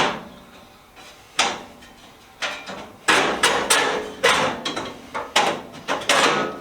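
Metal clanks and knocks as a greasy drawer slide track is worked loose and pulled out of a rolling tool box cabinet. There is a sharp knock every second or so, with a busier run of knocks and scraping near the middle.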